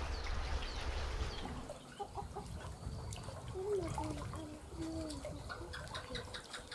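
Lake waves washing at the shore with low wind rumble, and a run of short gliding bird calls from about two seconds in.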